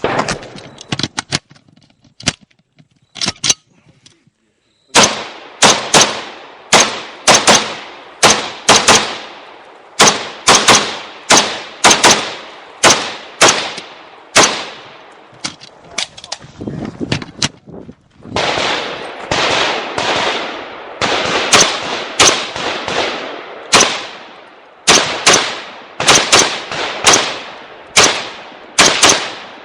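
AR-15 rifle fired in a long string of single shots during a timed match stage, about one to two shots a second, each with a short echo. The shooting starts about five seconds in, after a few light clicks, and comes thickest a little past the middle.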